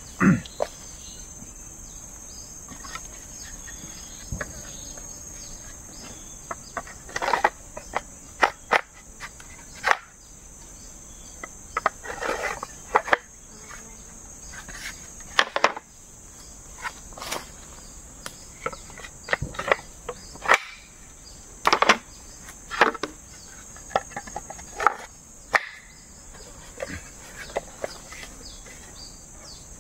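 Steady high-pitched insect chorus of crickets, with irregular short taps, knocks and rustles scattered through it.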